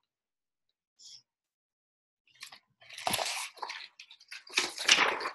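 Paper rustling as a picture book's page is turned: a faint brush about a second in, then two louder rustles about a second and a half apart in the second half.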